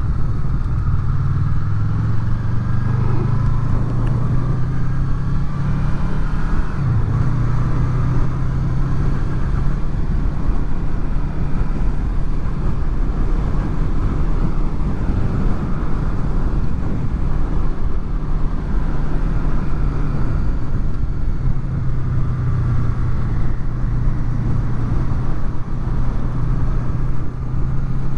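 Honda VFR800's V4 engine running at a steady road speed while riding, its pitch shifting only a little, over constant road and wind noise.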